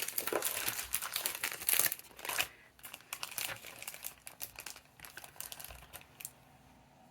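Scrapbooking papers and embellishments being handled, crinkling and rustling. The crinkling is dense and loudest in the first two and a half seconds, then thins to scattered rustles that stop near the end.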